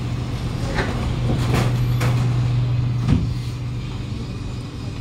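Passenger doors of a Kawasaki Nippon Sharyo C751B train sliding closed at a station stop, heard from inside the carriage. They shut with a thump about three seconds in, over the steady low hum of the stationary train.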